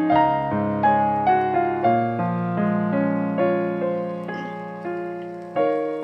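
Background piano music: a slow melody of single struck notes, each fading, over held bass notes.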